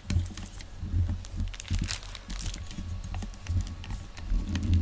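Clear plastic wrapping crinkling and rustling in irregular crackles, with several dull low thumps.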